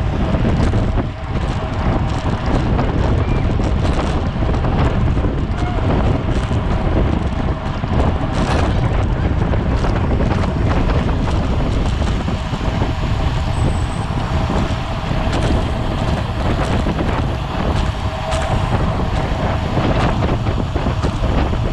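Wind rushing over a race bicycle's onboard camera microphone at speed, a steady low buffeting. It is scattered with sharp clicks and knocks, and a faint steady whine runs underneath.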